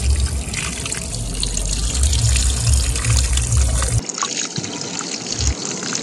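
Jet of water from a garden hose spraying and splashing over toy tractors, a steady rushing hiss. About four seconds in the deep rumble under it drops away and the spray sounds thinner.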